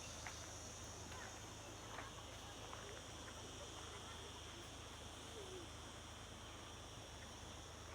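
Faint countryside ambience: a steady high insect chorus with a few short bird chirps scattered through.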